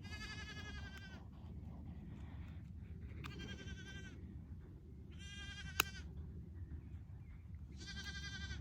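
Sheep bleating: four separate high-pitched bleats, each under a second long and spaced a few seconds apart. A single sharp click comes just before the third bleat ends.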